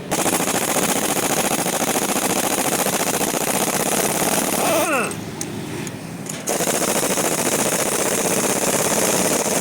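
Impact wrench running in rapid hammering bursts. A first burst of about five seconds winds down with a falling whine, and after a short pause a second burst starts and runs on.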